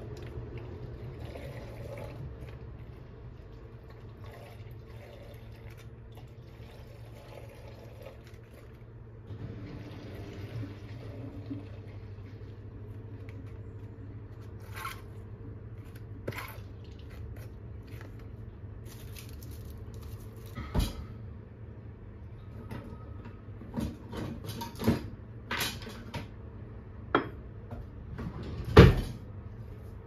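Kitchen handling sounds over a steady low hum: packets and cookware are handled, with a run of sharp knocks and clatters in the second half, the loudest near the end.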